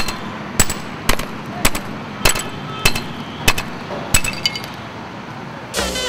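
Hand hammer striking bricks and stone, about nine sharp, ringing blows at a steady pace of roughly two a second, stopping shortly after the middle. Music begins near the end.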